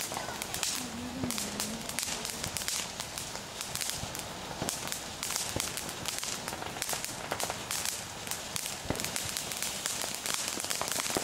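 Ground fountain firework spraying sparks: a steady hiss with a continual stream of sharp crackling pops from the crackling stars.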